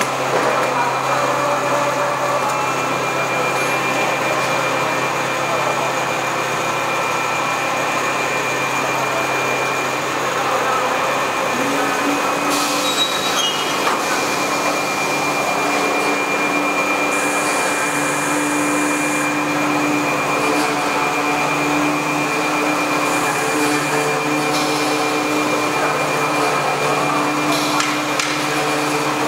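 Richpeace three-deck automatic single-needle quilting machine running: a steady mechanical whir of its motors with a thin high whine. A further low hum joins about twelve seconds in.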